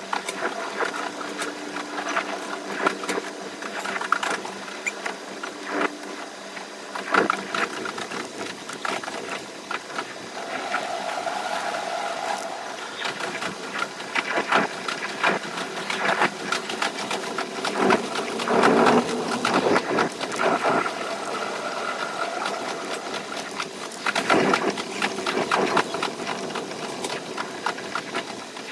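Electric limited express train running, heard in fast playback: a dense rattle of rapid clicks with a steady whine under it, swelling louder a few times.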